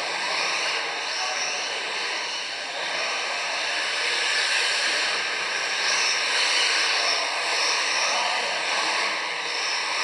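Several electric radio-controlled touring cars racing on a carpet track: a high-pitched whine of motors and drivetrains with tyre hiss, swelling and easing as the cars pass by in turn.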